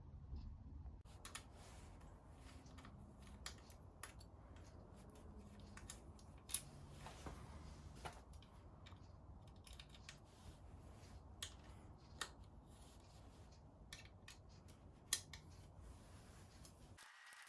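Near silence: a faint low hum with scattered small clicks and light knocks, the loudest about six and fifteen seconds in.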